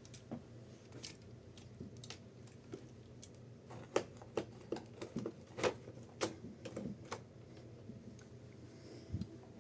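Light clicks and knocks from handling the Corona 3 folding typewriter and its carrying case: a few scattered clicks at first, then a quicker cluster of sharper knocks in the middle.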